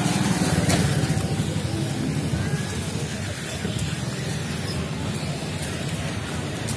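Street traffic noise: a steady low rumble of vehicle engines with a background haze and a few faint clicks.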